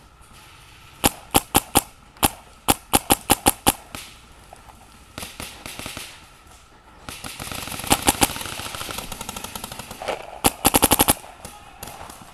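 Paintball markers firing in quick strings of sharp pops: a close burst about a second in, another run of rapid shots around three to four seconds, and a fast burst of about eight shots near the end, with fainter rapid fire from other markers in between.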